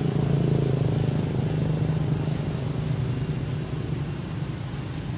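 A steady low engine rumble running without a break.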